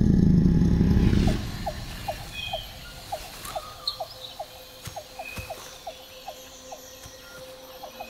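A deep low drone of music cuts off about a second and a half in, giving way to tropical forest ambience: a steady run of short, repeated pipping calls, about two or three a second, with scattered higher bird chirps.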